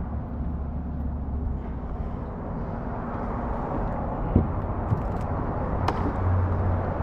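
Steady low outdoor rumble, with a couple of faint clicks about four and six seconds in.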